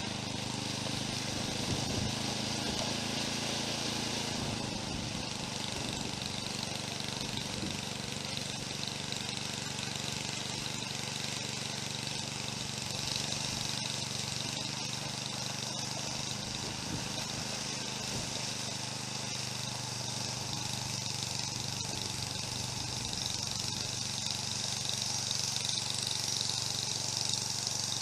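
Snowblower engine running steadily, with an even hiss over the engine note.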